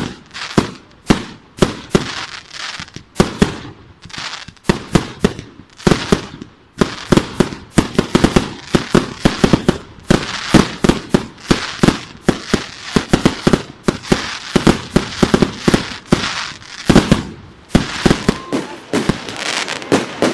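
Aerial fireworks bursting in quick succession: a dense run of sharp bangs, several a second, that come thickest through the middle.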